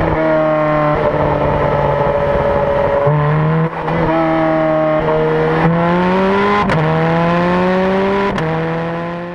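Ferrari F430 Scuderia's 4.3-litre V8 running under way: a steady engine note for about three seconds, then several climbs in pitch, each ended by a short sharp crack as the pitch drops back, as at quick upshifts. It fades out near the end.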